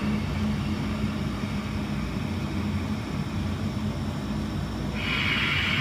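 Ujjayi breathing: a slow, audible breath drawn through a narrowed throat, with a louder hissing breath starting about five seconds in, over a steady low hum.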